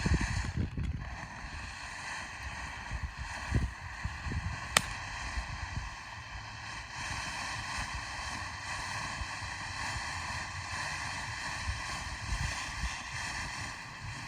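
Firework fountain burning with a steady hiss and no crackle, with gusts of wind on the microphone and a single sharp click about five seconds in.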